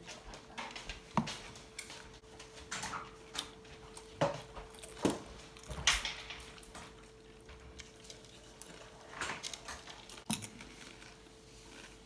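Eating at a table: irregular clinks and knocks of dishes and utensils mixed with short crackly crunches, as tortilla chips are scooped through cheese dip and eaten. A faint steady hum sits underneath.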